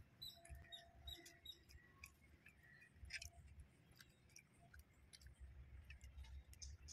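Near silence with faint scattered clicks and small mouth and hand noises of people eating parotta and curry by hand.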